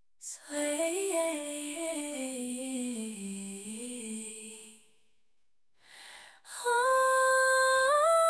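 Background music: a voice humming a wordless melody that drifts slowly downward. After a short pause, a held note climbs in small steps.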